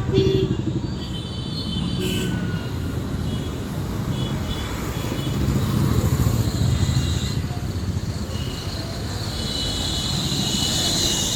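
Train running on the track: a steady low rumble with thin high wheel squeals that come and go, loudest near the end.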